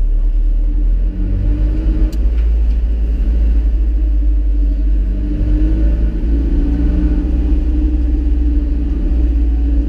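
Alfa Romeo 4C's turbocharged four-cylinder engine running at low road speed, a deep continuous rumble heard through the open window and reflected off the car park's walls. The engine note shifts about a second in and again around five seconds in.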